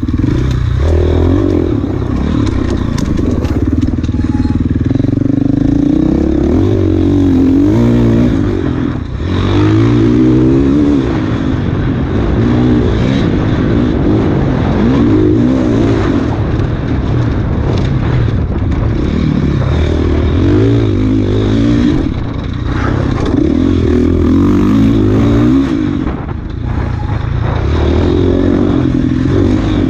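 Enduro dirt bike engine ridden hard off-road, its revs constantly rising and falling with the throttle and gear changes, dropping briefly three times, along with rattling and scraping from the bike.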